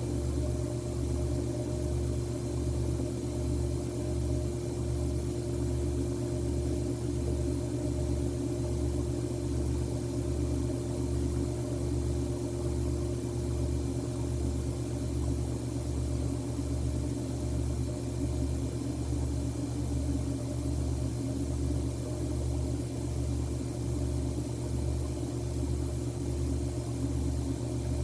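A steady low mechanical hum with a slow, even pulse, like a distant engine or machine running.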